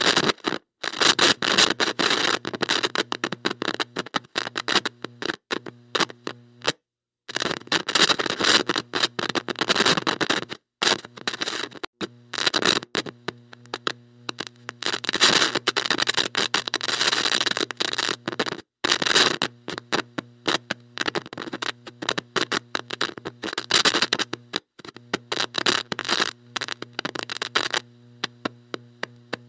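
Heavy electronic static from a bad connection: loud hiss and crackle cutting in and out erratically, with brief dead dropouts, over a steady electrical hum.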